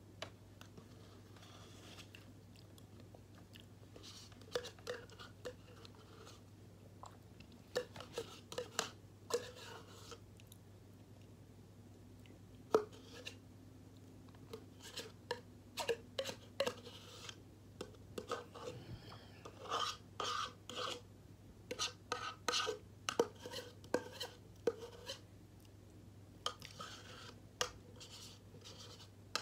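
Pen or pencil writing on paper in short, irregular scratchy strokes, coming in clusters, over a low steady hum.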